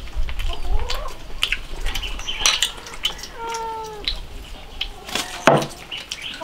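A cat meows, most clearly in one short call about halfway through and more faintly near the start. Around it are slurps from soup bowls and clicks of chopsticks and bowls as people eat.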